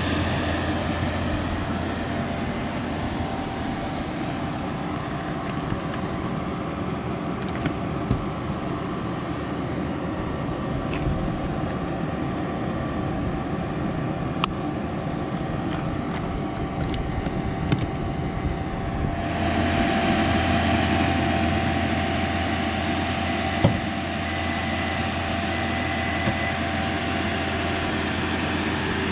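2022 Ford F-150 Lightning electric pickup driving: steady road and tyre noise with a faint steady whine and a few small knocks, with no engine sound. The noise grows a little louder and brighter about nineteen seconds in.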